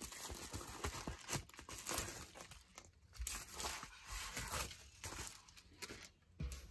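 Plastic bubble-wrap packaging crinkling and rustling as the pouch is opened and items in plastic sleeves are slid out and set down, in irregular bursts of crackling.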